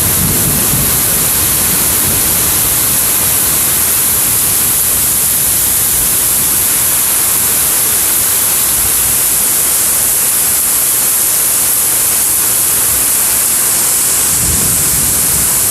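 Heavy thunderstorm rain pouring steadily, a loud, even hiss, with a low rumble at the start and again near the end.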